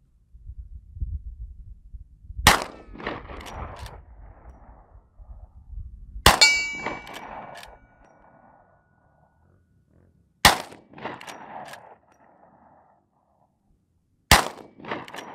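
Four rifle shots from a .44 Magnum Rossi R92 lever-action rifle, about four seconds apart, each followed by the clack of the lever being worked to chamber the next round. A metallic ring hangs on for over a second after the second shot.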